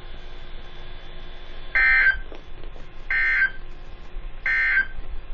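Three short, identical buzzy data bursts about a second apart: NOAA Weather Radio SAME digital tones, in this short form the end-of-message code that closes an EAS alert, over faint radio hiss.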